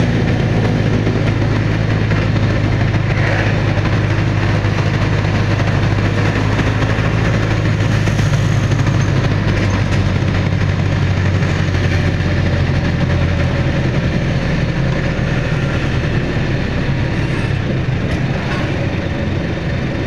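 Old Jeep's engine running steadily at cruising speed, a low drone with road noise. The low drone eases a little about two-thirds of the way through.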